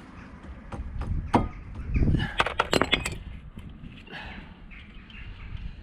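Sharp metallic clicks and clinks from the brake hose and its retaining clip being handled and fitted at the front wheel: a single click about a second and a half in, then a dull knock and a quick cluster of clicks between two and three seconds in.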